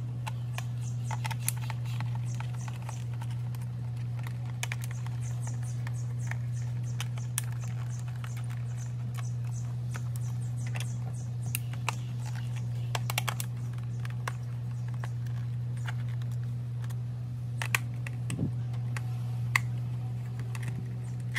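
A screwdriver backs small screws out of the plastic back plaque of a Gemmy singing fish, making scattered small clicks and plastic taps over a steady low hum.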